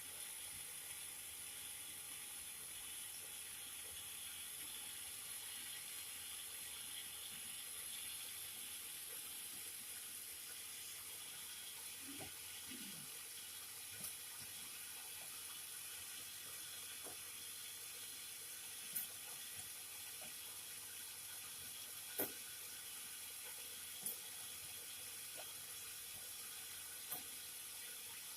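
Cotton candy machines running, a steady whirring hiss, with a few sharp clicks or taps in the second half.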